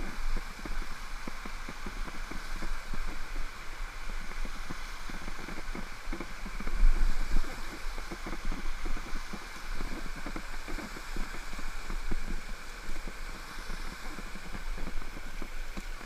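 Steady rush of a waterfall heard through a GoPro's housing, with irregular low thumps of wind buffeting and handling on the camera.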